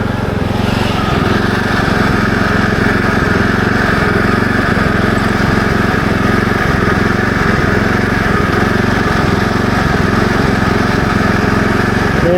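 Kubota SPJ400 rice transplanter's small engine running at a steady speed.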